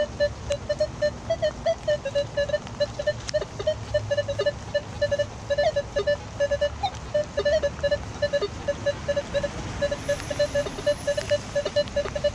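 Nokta Makro metal detector giving its target tone: a fast run of short, even-pitched beeps, about four a second, as the search coil is swept back and forth over a buried metal target.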